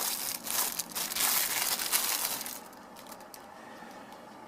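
Crinkling and rustling of packaging being handled, stopping about two and a half seconds in.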